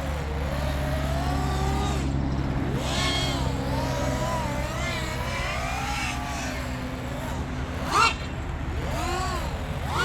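Five-inch FPV quadcopter's brushless motors whining, the pitch swooping up and down as the throttle changes, with two short loud throttle punches near the end. A steady low hum runs underneath.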